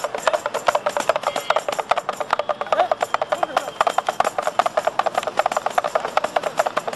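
A small drum beaten in a fast, continuous rattling rhythm of many even strokes a second.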